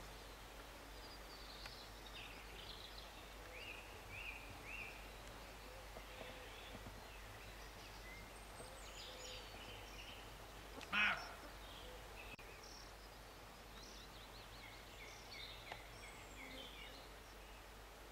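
Roe deer giving one short bark past the middle, over small birds chirping in the background.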